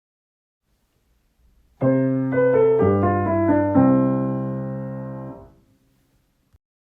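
Piano playing a short closing phrase: three chords about a second apart with moving notes on top, the last chord held, fading, then released.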